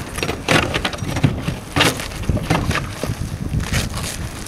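Shovels scraping and prying old roofing off the roof deck, the roofing sheets tearing loose in irregular strokes, with wind buffeting the microphone.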